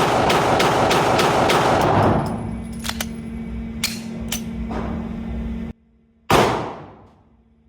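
Glock 45 9mm pistol fired rapidly, about four shots a second, each with heavy echo, until the string stops about two seconds in. A few light metallic clicks follow, then one more loud shot near the end that rings out over about a second.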